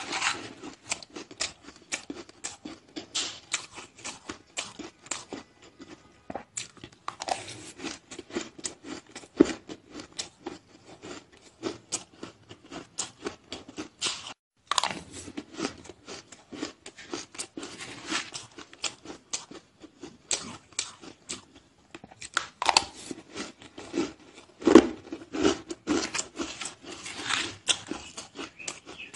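Close-up crunching and chewing of powdery white ice, a fast run of crisp crunches with one brief break about halfway through.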